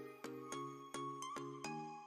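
Intro music: an even, steady pattern of struck chords over a bass line, about two to three strokes a second.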